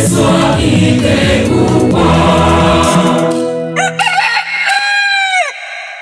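Choir music with singing fades out about halfway through, then a rooster crows once, a call of about two seconds ending in a long held note that drops in pitch.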